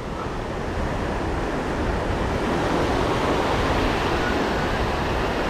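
Ocean surf breaking and washing up onto a sandy beach: a steady rushing wash of waves and foam.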